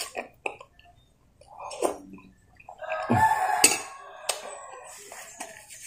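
A rooster crowing in the background: one long call starting about three seconds in. Short clinks of a spoon against a glass bowl come before and during it.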